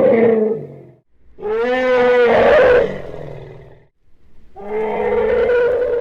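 Vintage stock sound-effect elephant roars: three long pitched roaring calls in a row. The middle call is the loudest and brightest, and it swells up sharply at its start.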